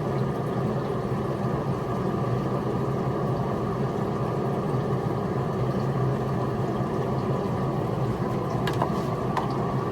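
Steady mechanical hum of a motor running at a constant speed, with a few light clicks near the end.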